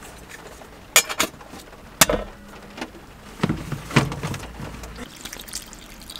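Plastic clicks and knocks as a plastic water container and its flexible spout and cap are handled, a handful of sharp, irregular taps over a couple of seconds.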